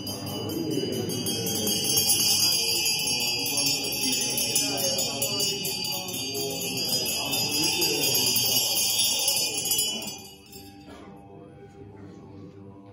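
Ritual bells rung rapidly and continuously in a bright, shimmering jingle, over monks' low group chanting. The bells stop abruptly about ten seconds in, leaving softer chanting.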